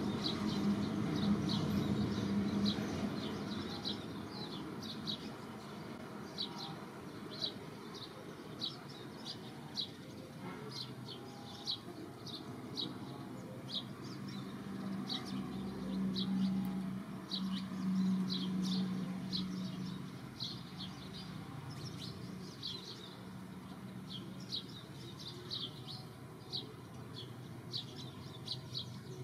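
A bird chirping over and over, short high chirps about every half second, over a low steady hum that swells briefly about halfway through.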